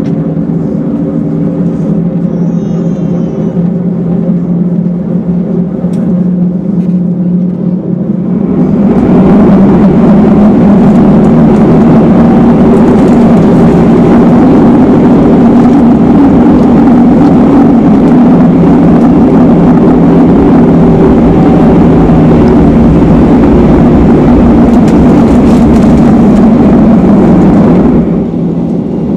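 Airbus A321 jet engines heard from inside the cabin while taxiing: a steady hum at first. About a third of the way in it turns to a much louder, even rushing noise that holds until near the end, then drops back.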